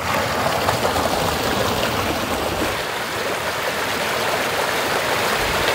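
Shallow forest stream flowing over rocks: a steady, even rush of water.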